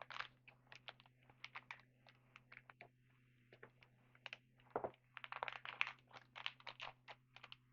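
Trading cards being handled and flipped through: a run of quick, irregular clicks and rustles that comes thicker and faster in the second half, over a faint steady hum.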